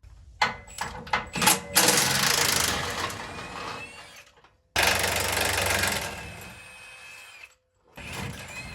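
Impact wrench hammering in bursts as it spins bolts loose. A few sharp clanks come first, then a burst of about two seconds, a sudden longer burst about halfway that tails off, and a short burst near the end.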